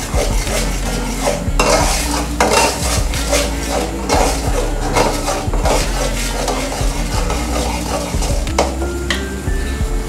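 Metal spatula stirring and scraping a spice paste of onion, garlic and ground spices as it fries in a metal karahi, with repeated scrapes and knocks against the pan and a sizzle underneath. The scrapes thin out near the end. The masala is being sautéed (koshano) until the oil separates.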